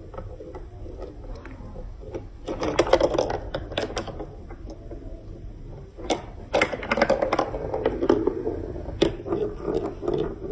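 Marbles rolling and clattering through a plastic building-block marble run, with rapid clicks and rattles in two busy runs, the first about two and a half seconds in and the second about six and a half seconds in, over a low rolling rumble.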